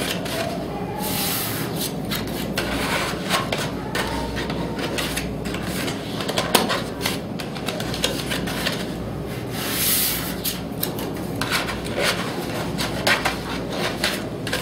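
Puzzle-lamp pieces rubbing and clicking against one another as they are flexed and hooked together. Two longer scraping swishes come about a second in and about ten seconds in.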